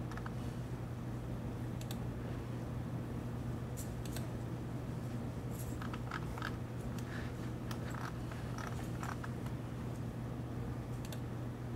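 Steady low hum in a small room, with a handful of scattered computer mouse clicks as CAD software is operated.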